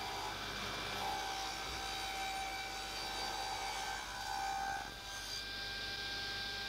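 Table-mounted router running steadily while a board is fed along the fence, cutting a groove for a Perspex panel; a steady whine with the cutting noise rising and falling slightly, and the highest hiss dropping away about five and a half seconds in.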